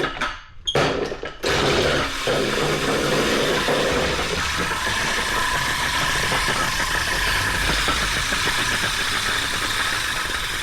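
Vintage push reel lawnmower rolling through grass, its spinning reel blades whirring and clattering as they cut. It stops briefly a couple of times in the first second or so, then runs steadily.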